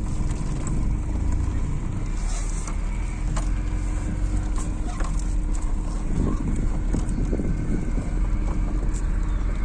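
Steady low rumble of a motor vehicle on the move, with a faint constant hum under it.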